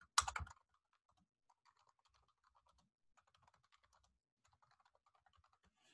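Faint computer-keyboard typing: a string of quick, irregular keystrokes as a short name is typed. A brief louder sound comes right at the start.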